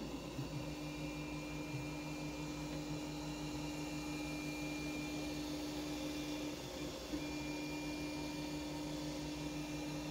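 FDM 3D printer running mid-print: the steady hum of its stepper motors and cooling fan, with a faint high whine above it. The hum dips briefly about seven seconds in, then carries on.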